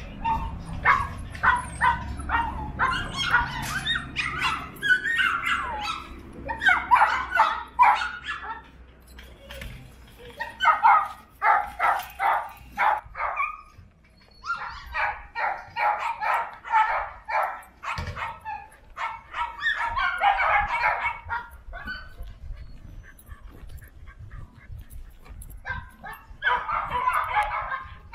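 Dogs barking in quick runs of many short barks, coming in bouts with brief lulls between them.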